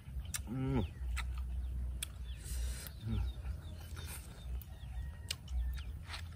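A man chewing grilled meat with his mouth open: wet mouth clicks and lip smacks, with a short low 'mmm' hum about half a second in and another about three seconds in, over a low steady rumble.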